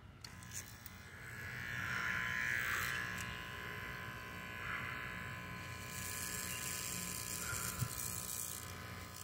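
Electric hair clippers running with a steady buzz as they trim a cat's fur, louder for a stretch about a second in.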